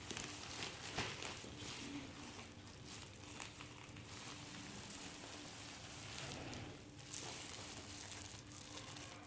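Crinkling and rustling of a paper sky lantern and its wrapping being handled, coming and going unevenly with small crackles.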